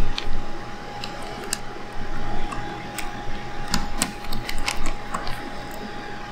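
Irregular small, sharp clicks and ticks of a precision Phillips screwdriver turning and seating in the tiny screws of a Sony A7R camera body, with a cluster of sharper clicks in the middle.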